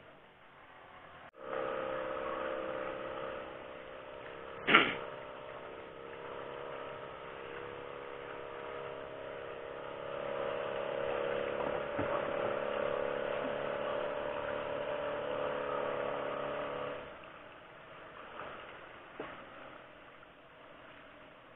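Outrigger fishing boat's engine running steadily under way, with a sharp knock about five seconds in. The engine sound falls away about three-quarters of the way through, leaving a fainter wash of wind and water.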